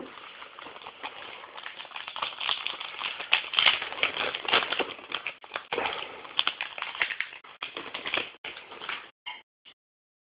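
Baseball cards and their pack wrappers being handled: dense crackly rustling with many small clicks, stopping abruptly about nine seconds in.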